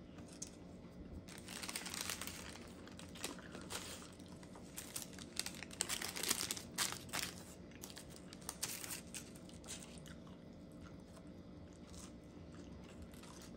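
Greaseproof paper food wrapper crinkling and rustling as it is handled, in a run of crackly bursts starting about a second in, busiest around the middle and dying down over the last few seconds.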